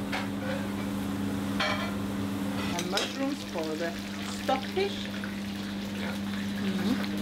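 Sliced mushrooms sizzling as they fry in hot oil in a pan, over a steady low hum.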